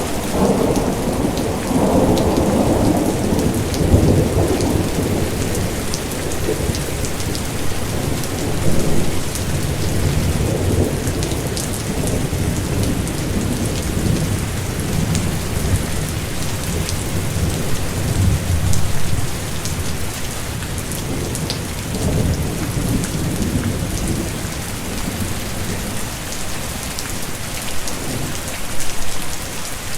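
Steady heavy rain with fine pattering drops, under a low rolling rumble of thunder that is strongest in the first few seconds and fades off.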